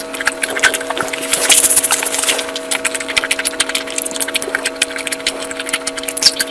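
Close-miked eating: dense, irregular crunching and crackling as food is chewed, loudest for about a second around the middle, over a steady hum.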